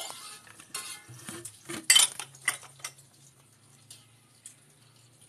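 A metal spatula clanks and scrapes against a wok while risoles are turned in the frying oil. There is a quick run of clinks, the loudest about two seconds in, then a few scattered taps.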